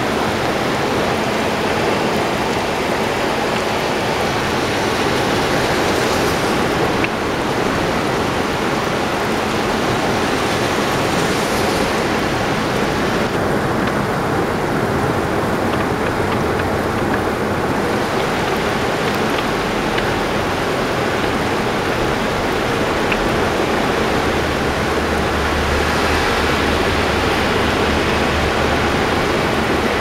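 Typhoon-swollen river in flood, its muddy water rushing steadily past the bank. A low rumble joins after about twenty seconds.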